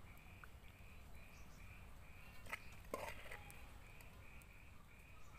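A ladle serves chicken gravy onto rice on a banana leaf, giving two short knocks about halfway through. Under it, faint high chirps repeat evenly, about three a second.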